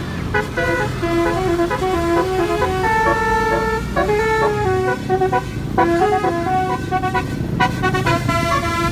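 Basuri keong telolet horn playing a tune: a quick run of short horn notes stepping up and down, with one longer held note about three seconds in, over a low rumble.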